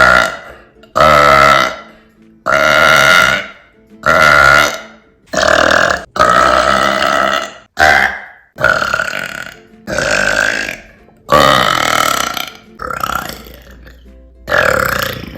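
A woman burping loudly again and again, about a dozen deep burps in a row, each lasting roughly a second with brief pauses between them.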